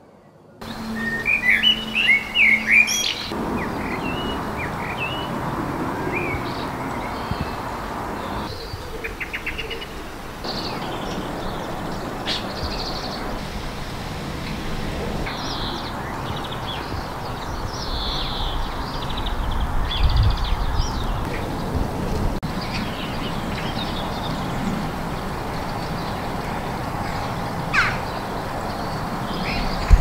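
Garden birds singing and calling: a quick run of chirps near the start, then scattered short calls and song phrases over a steady background hiss, with a single brighter whistle near the end.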